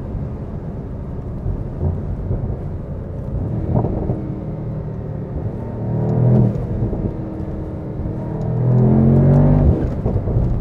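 Mercedes-AMG SL 63's 4.0-litre twin-turbo V8 accelerating, heard from inside the cabin. The engine note rises in pitch around six seconds in, then rises again, louder, near nine seconds, and cuts off sharply just before the end.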